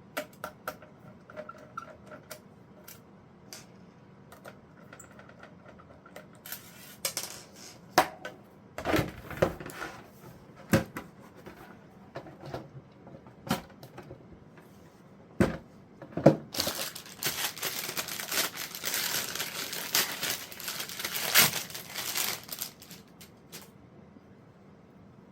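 Hands working on an NVR recorder's casing and parts: scattered clicks and knocks. Later comes a stretch of about six seconds of rustling and crinkling.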